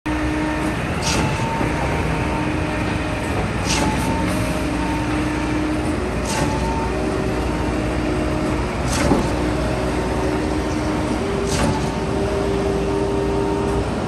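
Concrete mixer truck's diesel engine running steadily as the truck pulls away, with a sharp click repeating about every two and a half seconds.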